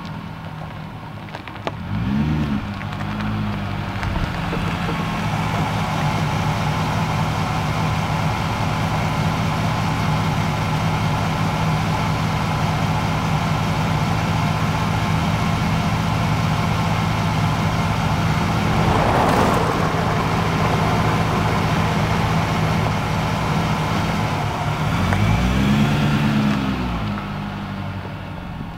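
Car engine idling through a Dynomax muffler, a steady low exhaust note. Two throttle blips rise and fall in pitch, one about two seconds in and one near the end. There is a brief rushing noise about two-thirds of the way through.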